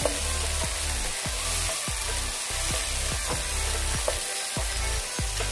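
Onions, tomatoes and garlic sizzling in oil in a nonstick wok as a wooden spatula stirs them, under background music with a steady beat.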